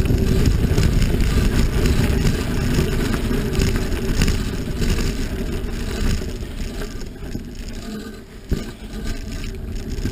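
Rumble of a moving vehicle with wind buffeting the camera's microphone. It eases off a little in the second half, and a single sharp knock comes near the end.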